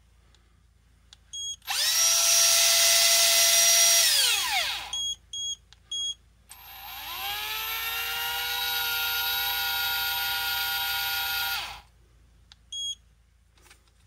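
Shimano Force Master 800 electric reel's motor spinning the spool: a whine that rises to a steady pitch for about three seconds and then winds down, a few short electronic beeps, then a second run at a lower pitch for about five seconds that stops abruptly, followed by one more beep.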